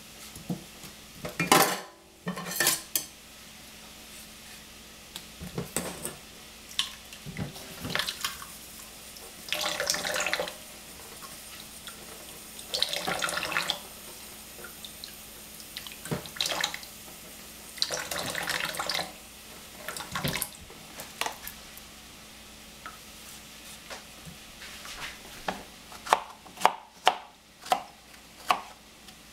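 Kitchen clatter with a few short bursts of running water from the sink, then a kitchen knife slicing strawberries on a plastic cutting board in quick sharp taps near the end.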